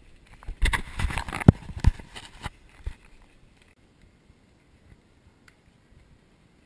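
Corgi puppies scrambling on a wooden floor and bumping the camera: a flurry of scuffling and knocks for about the first three seconds, then only faint ticks.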